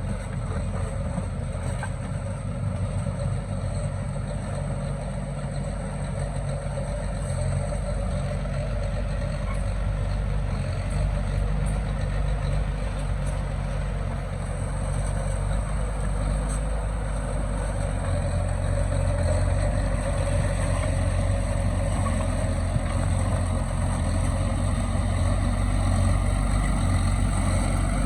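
Heavy diesel engine of a dump truck or bulldozer running steadily, growing a little louder about two-thirds of the way through.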